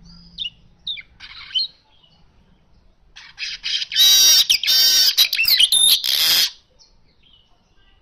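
Caged male weaver (manyar) singing: a few short high chirps, then from about three seconds in a quick run of ticks that breaks into a loud, harsh, buzzy song lasting about two and a half seconds and ending abruptly.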